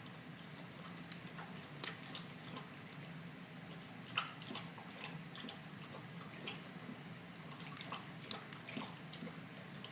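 Lock pick and tension wrench working the pins inside a Lockwood 334M45 stainless steel padlock: irregular small metallic clicks and taps, a few sharper ones among them, as the pins are picked one by one against tension.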